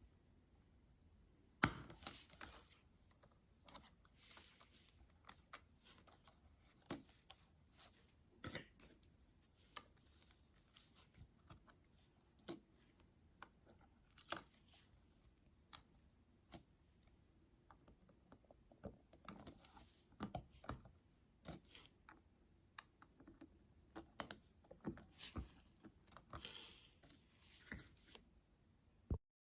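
Spacebar keycap on an Apple Magic Keyboard for iPad Pro being worked off its clips and hinge mechanism: scattered small plastic clicks and scrapes, with a sharp click near the start and another about halfway.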